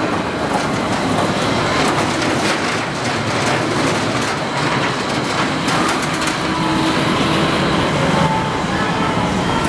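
Bobsled coaster car running along its steel trough track, a steady rolling rumble and rattle of its wheels.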